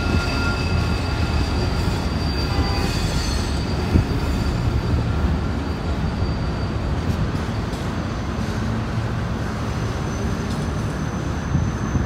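Freight train of tank cars rolling past with a steady low rumble, the wheels squealing in thin, steady high tones. A single short knock about four seconds in.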